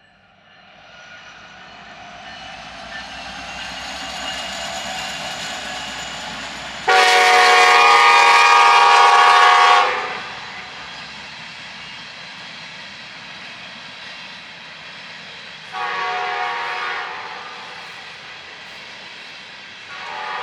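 Approaching train growing louder, then its locomotive air horn sounds a chord: a long blast about seven seconds in and a shorter one about sixteen seconds in, with a third just starting at the end, over the steady rumble of the passing train.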